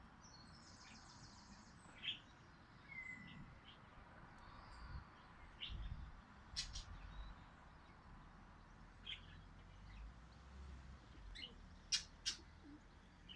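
Faint, scattered short bird chirps, a few isolated calls and a quick pair near the end, over a low steady background.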